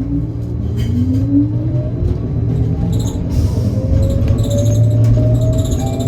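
Trolleybus electric traction motor and drive whining, the pitch rising steadily as the articulated New Flyer XT60 accelerates away from a stop, over a steady low rumble of the running bus with a few brief rattles.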